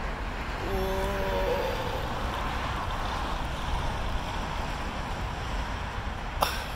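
Steady outdoor rush of background noise in a park. About a second in there is one drawn-out pitched call lasting just under a second, and a sharp knock comes near the end.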